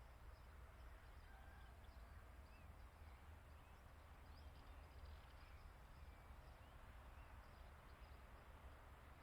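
Near silence: faint, scattered chirps of distant birds over a low, steady rumble.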